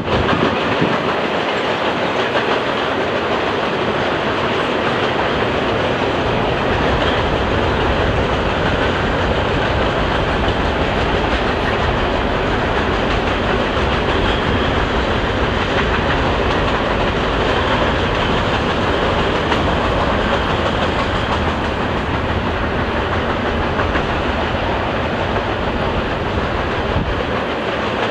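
Freight train rolling steadily across a railway trestle: a continuous rumble with the clatter of wheels over rail joints, and no horn.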